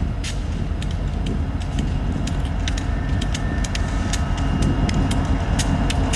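Diesel locomotives of an approaching Union Pacific freight train rumbling low and growing gradually louder. Scattered sharp clicks run through it, and a faint high whine comes in about halfway.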